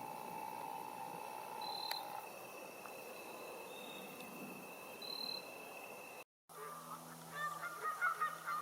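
Steady high insect trilling, then after a cut a flock of Canada geese honking over the last two seconds, louder than the trilling, with a low steady hum underneath.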